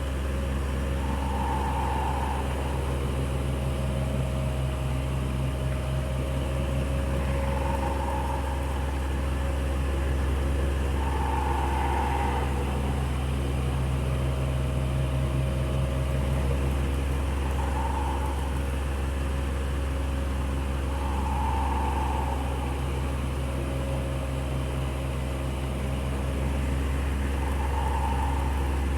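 Electric fan running steadily: a low motor hum with a few steady tones under an even rush of air. A short, soft, mid-pitched tone recurs irregularly every few seconds.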